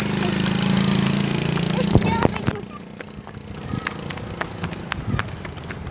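Shantika coach's engine running loud as the bus goes by, fading sharply after about two and a half seconds, with a few sharp clicks as it fades.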